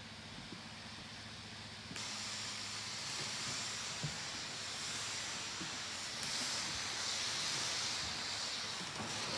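Shark corded vacuum cleaner running: a steady rush of air with a low motor hum underneath. About two seconds in it suddenly gets louder and hissier, and it stays that way.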